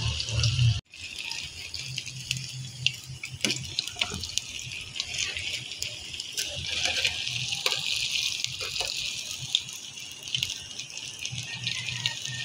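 Vegetable fritters deep-frying in hot oil in a wok: a steady sizzle with scattered crackles, and the scrape and tap of a metal spatula turning the fritters in the oil.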